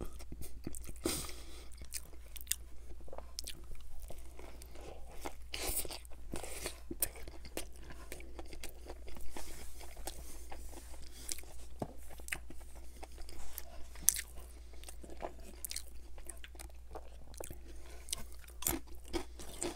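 Close-miked chewing of a mouthful of Whopper burger: repeated wet mouth clicks and soft crunching. Near the end, a crisp cracker is bitten.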